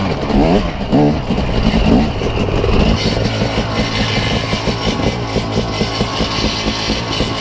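Dirt bike engine revving up and down a few times, then settling into a steady, pulsing idle from about three seconds in.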